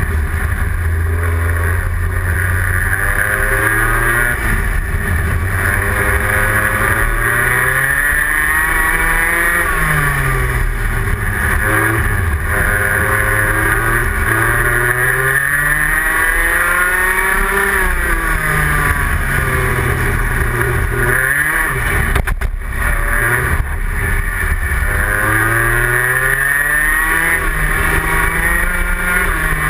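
Rotax Senior Max kart's 125 cc single-cylinder two-stroke engine at racing pace, its revs repeatedly climbing and then dropping away as the kart laps the track. A short knock comes about two-thirds of the way through.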